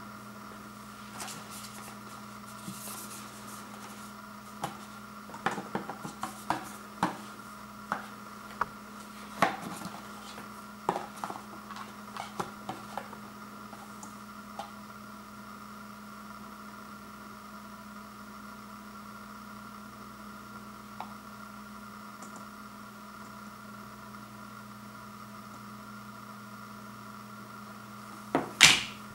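Handling noise: small, irregular plastic clicks and taps from hands working the LED bulb's remote control and its box, over a steady faint hum. A louder knock comes near the end.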